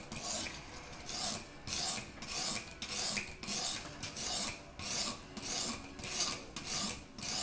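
Whetstone on a guided fixed-angle knife sharpener stroked back and forth along a clamped kitchen knife's edge: an even, rasping stone-on-steel stroke a little over twice a second. The blade is being worked to a new edge and is already smoother to the touch.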